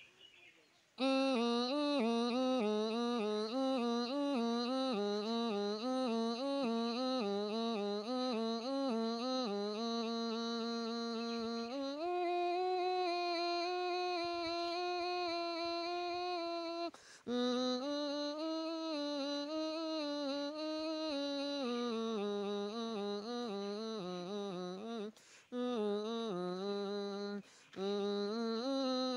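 A man imitating a snake charmer's been (gourd pipe) with his throat: one long, wavering melody that steps up higher about twelve seconds in and drops back after a short break. Two more brief breaks come near the end.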